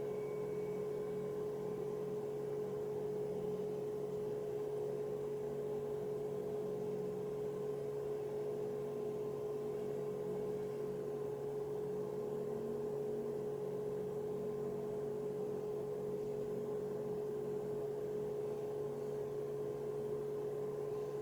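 A steady, unchanging hum: one clear mid-pitched tone with a fainter lower drone beneath it.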